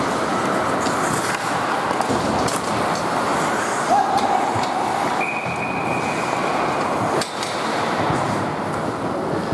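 Ice hockey in play: a steady wash of skate blades scraping the ice, with a few sharp clacks, the clearest about seven seconds in, and a brief held tone near the middle.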